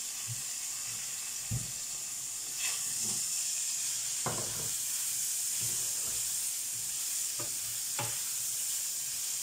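Sliced champignon mushrooms and onion sizzling steadily in hot rapeseed oil in a frying pan, stirred with a spatula. There are a few short knocks and scrapes of the spatula against the pan.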